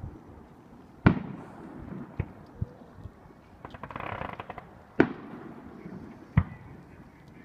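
Fireworks display: sharp single bursts about a second in, two smaller pops near two and a half seconds, a run of crackling around four seconds, then two more bursts near five and six seconds, the loudest about a second in and near five seconds.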